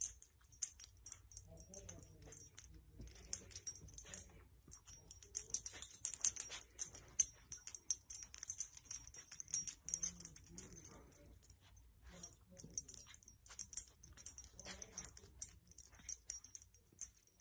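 Quiet rustling of a fleece blanket and scattered small clicks as a dog nudges it with its nose and snout.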